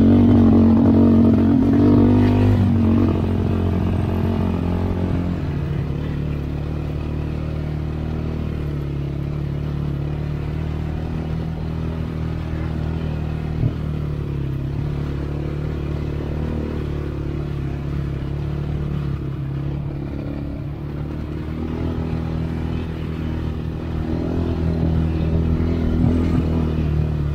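Polaris Outlaw 525 ATV's single-cylinder engine running as it rides along a trail. It pulls harder for the first few seconds, then settles to a steady lower drone. There is a single sharp knock about halfway through.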